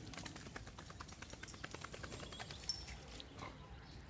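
Dog panting quickly and faintly after a swim, with a brief sharp click about two and a half seconds in.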